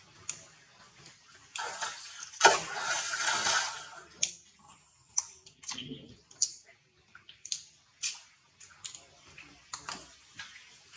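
Water splashing and sloshing as macaques swim and climb about in a pool. There is a loud stretch of splashing from about one and a half to four seconds in, then a series of short, sharp splashes and clicks.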